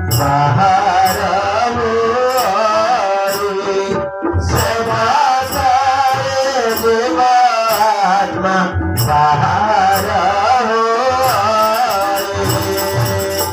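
Indian devotional music: a melodic singing voice over drum percussion.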